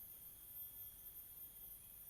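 Faint, steady high-pitched chorus of insects such as crickets, with a continuous trill and no breaks.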